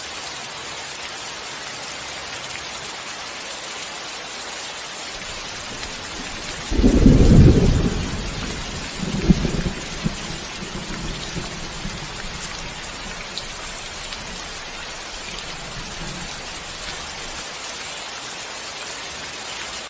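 Thunderstorm: steady rain hiss, with a loud thunderclap about seven seconds in, a second smaller crack a couple of seconds later, and rumbling that fades over several seconds.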